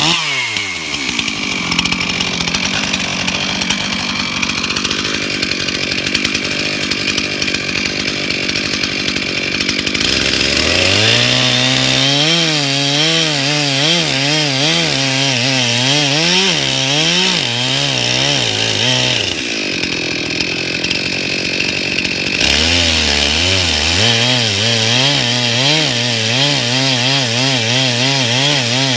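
Stihl MS 391 two-stroke chainsaw in a homemade Alaskan-style mill, held at high revs and then cutting along a log. Its engine speed rises and falls repeatedly as the chain bites and bogs in the wood, with a steadier stretch about twenty seconds in.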